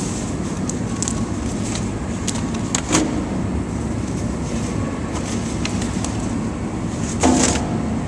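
Stiff flattened cardboard sheets being handled and fed into a waste baler's chamber, with a short scrape or rustle about three seconds in and another near the end, over a steady low rumble.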